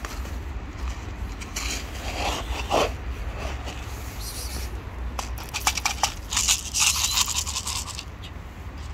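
Crinkling and crackling of a plastic bag of dry cat food being handled, thickest between about five and seven and a half seconds in. A short falling meow comes about three seconds in.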